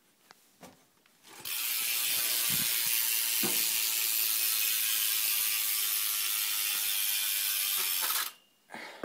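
Rear hub of a BMX bike, a Shadow Raptor with a 9-tooth driver, freewheeling as the back wheel spins; the pawls click so fast they merge into a steady high buzz. It starts about a second and a half in and stops suddenly near the end.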